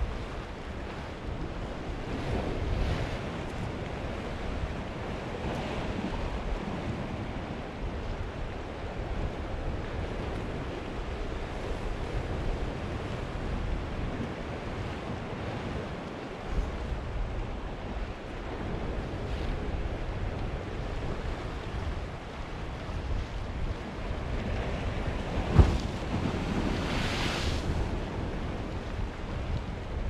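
Small sea waves washing and swirling against a rocky shore, in steady surges, with wind rumbling on the microphone. Near the end a sharp slap comes, then a bigger wave washes over the rocks with a louder hiss.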